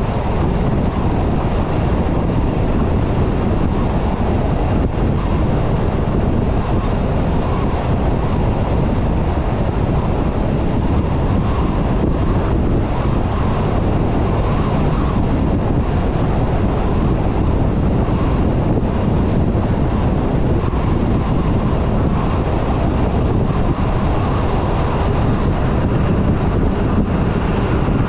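Steady road and wind noise of a car driving along a highway: a continuous low rumble.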